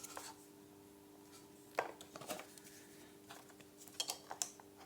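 A few sharp clicks and light knocks of plastic parts being handled under the motorcycle seat, around the OBD port clips. There are two single clicks about two seconds in and a quick cluster near the end, over a faint steady hum.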